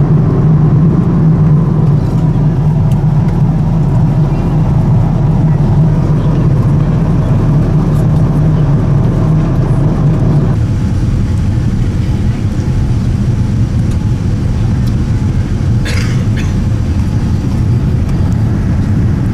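Steady low rumble of jet engines and airflow heard inside an airliner cabin, a Boeing 787. About halfway through, the rumble drops and changes pitch, and a short sharp sound comes near the end.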